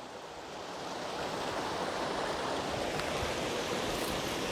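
Creek water rushing and splashing over small falls and rocks, a steady even rush that swells a little in the first second or so.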